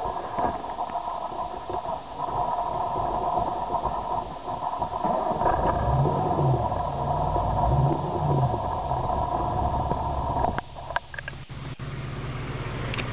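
Freshly rebuilt VW Polo G40's G-Lader-supercharged four-cylinder engine running just after its first start, idling with a steady high whine over it and revved in a few short blips about six to eight seconds in. The whine cuts off about ten and a half seconds in, followed by a few clicks.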